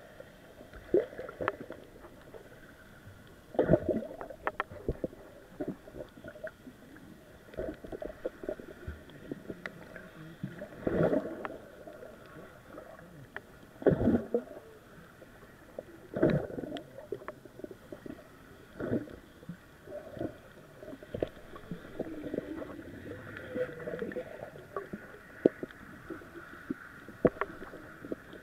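Muffled underwater sound from an action camera's waterproof housing held underwater: irregular dull knocks and water sloshing as swimmers move around it, with a few louder bumps every few seconds.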